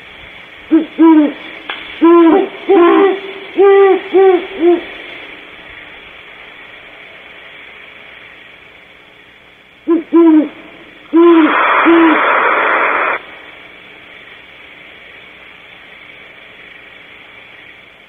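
Great horned owls hooting: a run of about eight deep hoots in the first five seconds, then after a pause a few more hoots. Over these comes a harsh hissing screech about two seconds long, the call of a barn owl.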